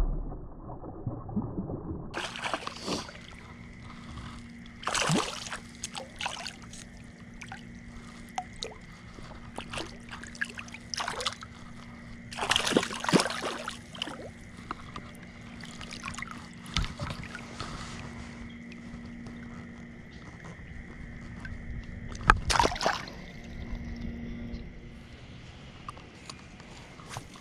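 Water sloshing and splashing close to the microphone, with sharp knocks and rustles of handling. A faint steady whine runs behind them.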